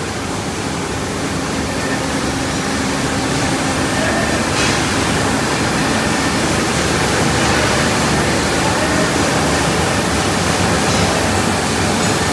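Steady, loud rushing background noise of a factory floor, with a faint low hum, growing slightly louder over the first few seconds.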